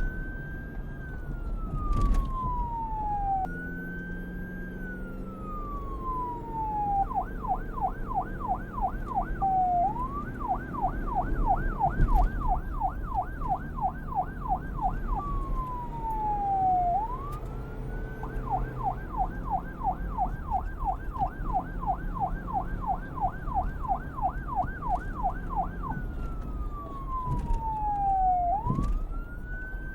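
Police car electronic siren alternating between the slow wail, rising and falling over a couple of seconds, and long stretches of the fast yelp at about four sweeps a second. A low rumble runs underneath.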